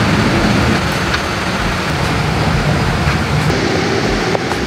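Airline catering high-loader truck running at the aircraft: a steady mechanical drone from its engine and lift machinery, with a couple of faint clicks.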